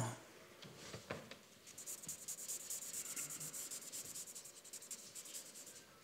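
Marker pen scribbling rapidly back and forth on a paper pad, shading in a drawing. It is faint, starts about a second and a half in and goes on for about four seconds.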